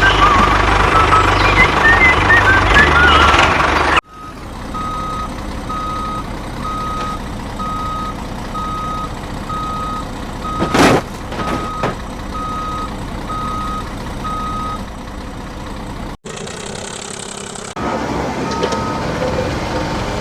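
Vehicle reversing alarm giving evenly spaced single beeps, about three every two seconds, after a few seconds of loud music, with one sharp knock partway through.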